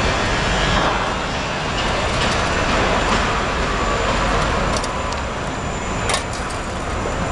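Steady city street traffic noise, with a couple of short sharp clicks about five and six seconds in.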